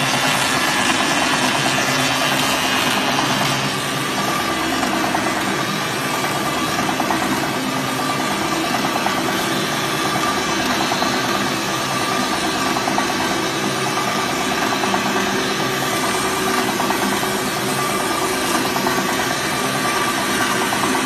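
Waste-tyre strip-cutting machine running steadily, its motor-driven rollers pulling a tyre through the blade and cutting it into a continuous rubber strip.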